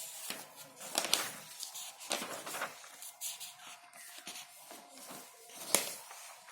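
Irregular scratching and rustling handling noises in short strokes, with a sharper tap near the end.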